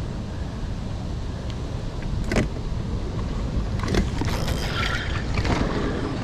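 Steady low rumble of wind and water around a fishing boat, with a few sharp clicks or knocks about two and a half, four and five and a half seconds in.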